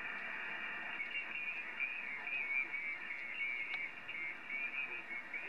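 Receiver audio from a Yaesu FT-991A transceiver on the 40-metre band at 7.141 MHz: a steady hiss of band noise with a faint, wavering high-pitched warble coming in about a second in.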